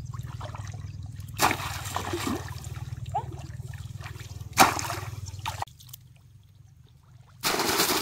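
Splashes of shallow, muddy pond water as a bamboo plunge-basket fish trap is pushed down, twice, over a low steady hum. Near the end come loud, continuous splashes of a trapped fish thrashing inside the basket.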